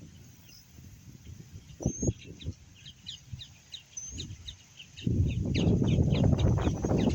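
A bird calling in a quick run of short, high chirps, with a few low knocks about two seconds in. About five seconds in, wind starts rushing on the microphone and covers the low end.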